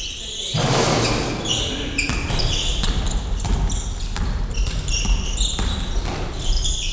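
Basketball game sounds in an echoing gymnasium: a ball bouncing on the wooden floor and sneakers squeaking in short high chirps as players run. A rush of noise lasting about a second comes just after the start.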